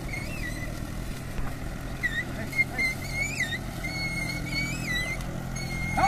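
Farm tractor engine running with a steady low drone, with high chirping whistles repeating over it from about two seconds in.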